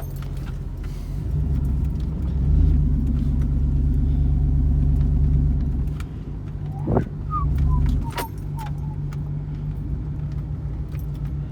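Ford 460 big-block V8 in a lifted pickup crawling off-road through snow, pulling harder for about four seconds before easing back to a steadier, lower run. A few short squeaks and scattered rattling clicks come from the truck around the middle.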